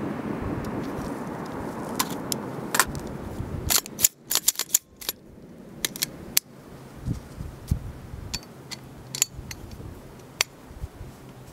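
Sharp metallic clicks and clacks of an AR-style pistol being handled and checked after firing, with a quick run of them about four seconds in. For the first few seconds they sit over a steady hiss.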